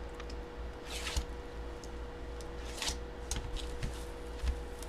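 A dull utility blade scraping and slicing at the cellophane wrap on a trading card box, with crinkling plastic and small clicks. There are two longer scrapes, about a second in and near three seconds. The blade is too dull to cut the cellophane cleanly.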